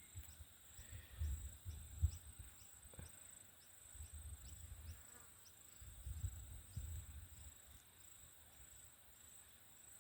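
Insects chirping: a steady high-pitched trill with a regular pulse about twice a second, with a few brief low rumbles underneath.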